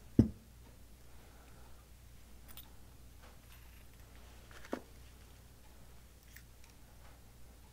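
Knocks and clicks of metal Amal Premier carburettor parts being handled on a workbench. One loud knock comes just after the start, a sharper click a little past the middle, and faint small clicks of parts in between.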